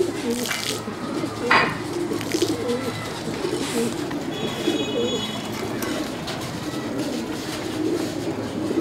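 Domestic pigeons cooing, overlapping low calls.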